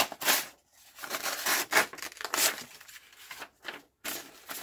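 A sheet of paper being cut with a dull folding knife blade in a paper test: a run of short rasping tears and rustles as the blade is drawn through. The blade, which the owner finds not very sharp, rips the paper rather than slicing it cleanly.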